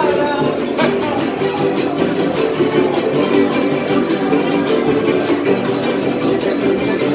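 Son huasteco trio playing: a violin melody over the fast, even strumming of a huapanguera and a small jarana huasteca.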